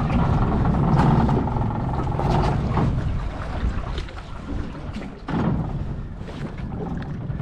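Small tender's outboard motor running under way, a steady low rumble with a faint whine, with a few short knocks from the hull on the water.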